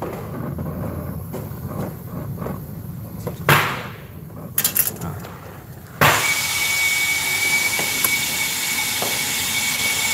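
Brazing torch flame burning at a copper refrigerant joint, with scattered clicks and one sharp loud pop about three and a half seconds in. About six seconds in, a loud steady gas hiss with a thin high whistle starts abruptly and keeps going.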